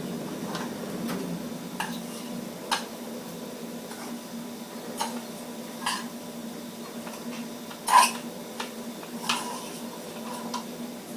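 Irregular clinks and taps of a utensil against a metal container, about a dozen, the loudest about eight seconds in with a short ring, over a steady low hum.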